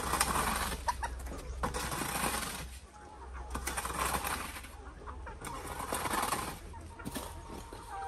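Flat shovel scraping across dry dirt and leaf litter in repeated strokes, about one every two seconds, with chickens clucking in the background.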